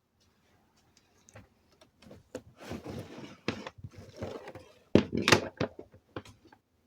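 Irregular knocks, clacks and scraping of a hard object being handled, with rustling in between; a sharp knock about five seconds in is the loudest.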